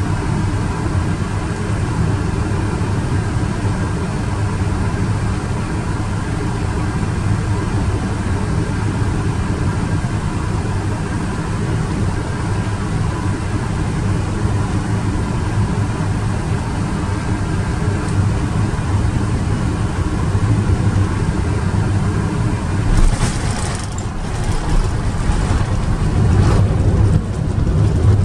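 Airbus A380 airliner noise during landing: a steady low rumble with faint steady tones. From about 23 seconds in, irregular clatter and knocks come in over it.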